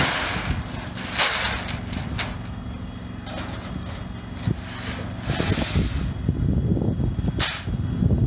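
Large sheet-metal road-marking stencils being handled and laid down on the asphalt, giving a few sharp clanks and slaps, over the steady hum of a striping truck's engine.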